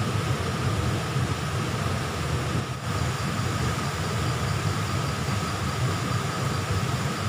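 A fast-flowing stream rushing over rocks: a steady low rush of water.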